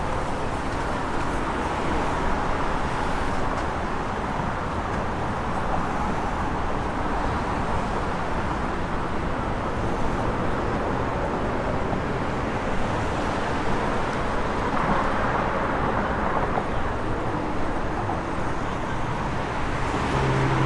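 Steady outdoor urban ambience: a dense, even wash of noise like street traffic, with no distinct events.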